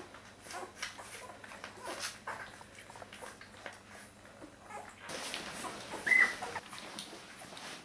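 Newborn Border Collie puppies nursing: soft suckling noises with small squeaks and whimpers from the litter. About six seconds in, one puppy gives a single louder, high squeak.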